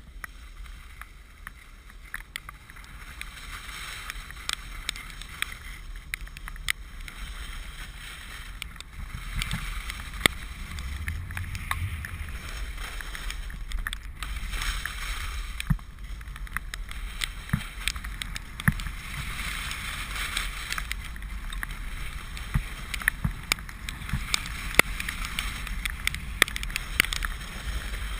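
Telemark skis sliding and carving through soft, wet snow, a hiss that swells and eases every few seconds with the turns, over a low wind rumble on the camera microphone. Many short, sharp ticks are scattered through it.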